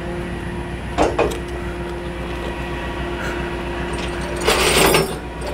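Flatbed tow truck running steadily with a steady whine from its hydraulics. There is a sharp knock about a second in and a short burst of clattering noise near the end.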